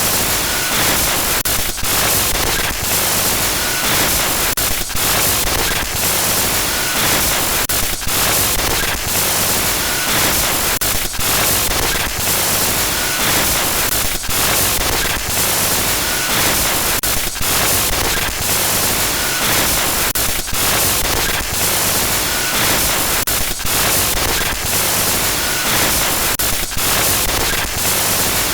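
Loud glitch noise: harsh static hiss across the whole range, broken by brief irregular dropouts like stutters, with a faint short high blip about every two seconds.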